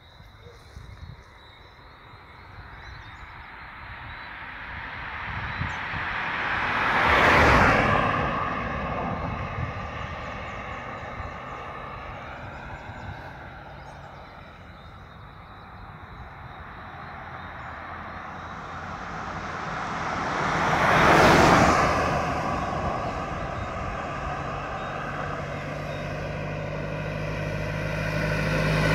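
Road vehicles passing by one at a time. One swells and fades about seven seconds in, another about twenty-one seconds in. Near the end another vehicle approaches and the noise builds again.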